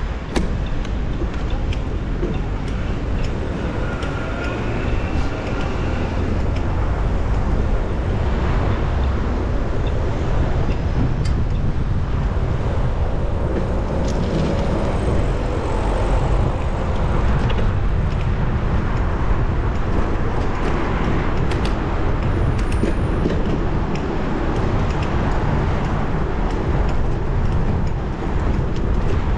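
City street traffic noise heard from a moving bicycle, with a steady low rumble of wind on the action camera's microphone.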